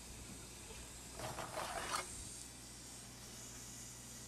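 Mostly quiet room tone, with a faint scrape lasting under a second about a second in.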